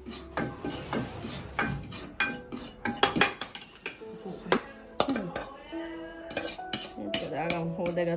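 A metal spoon scraping and clinking against a metal wok as spice powder is stirred and then scraped out of the pan: many sharp, irregular scrapes and knocks.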